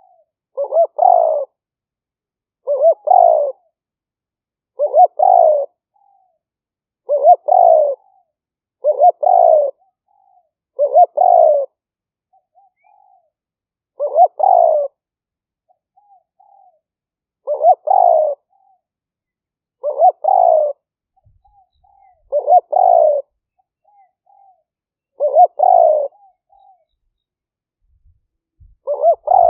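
Spotted dove cooing: a decoy bird's repeated call, about a dozen phrases, each a short lead-in note followed by a longer coo, every two to three seconds.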